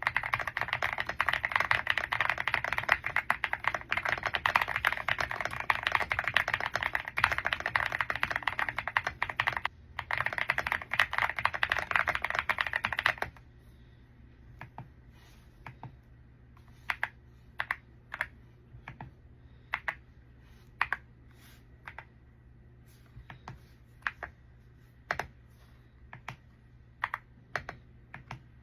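Womier X75 gasket-mount mechanical keyboard with pre-lubed switches being typed on: about thirteen seconds of fast continuous typing with a brief pause near ten seconds, then slower, separate keystrokes.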